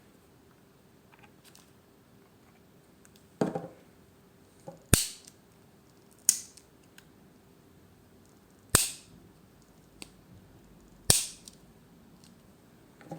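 Victorinox Swiss Army knife tools being opened and closed, each snapping into place against the backspring with a sharp metallic click, working freshly applied oil into the pivots. About five loud snaps come at uneven gaps of one to two and a half seconds, with fainter clicks between them.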